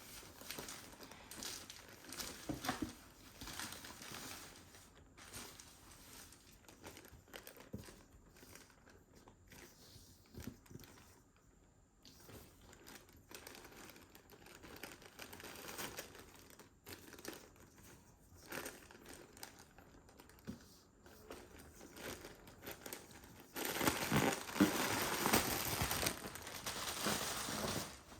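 Paper packaging being handled and unwrapped: scattered soft rustles and clicks, then about four seconds of louder, continuous crinkling near the end.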